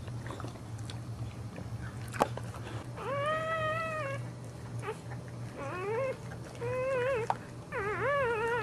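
Newborn Boxer puppy crying in high-pitched squeals: four cries in the second half, the first a long even one, the later ones shorter and wavering in pitch.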